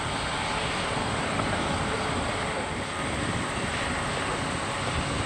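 Airbus A350-900's Rolls-Royce Trent XWB jet engines running at taxi idle as the airliner rolls past close by: a steady, even noise.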